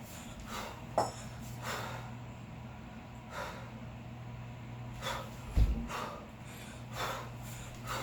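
Hard, rhythmic breathing of a kettlebell lifter working a long cycle with two 16 kg bells late in a 10-minute set: about seven sharp breaths, one every second or so. A dull thump comes about five and a half seconds in, and a lighter knock about a second in.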